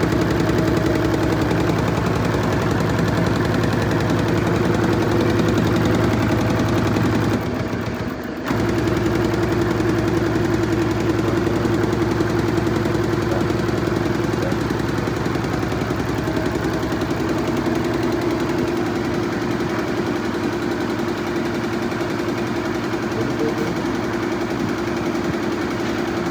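Four-head Fuwei embroidery machine stitching at speed: a rapid, steady clatter of needle strokes over a motor hum. The sound dips briefly about eight seconds in, then carries on.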